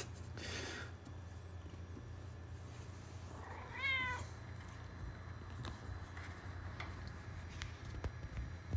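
Domestic cat giving one short meow about four seconds in.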